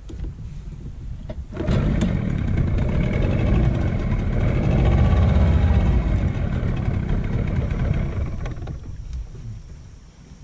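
A boat engine running, cutting in suddenly about a second and a half in, running steadily, then dying away near the end.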